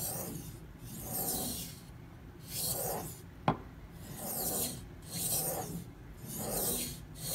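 Chef knife blade being stroked back and forth on the 1000-grit side of a Suehiro SKG-27 combo waterstone, held at a set angle by a clamp-on guide: a rasping scrape with each stroke, about six strokes. There is one sharp click about halfway through.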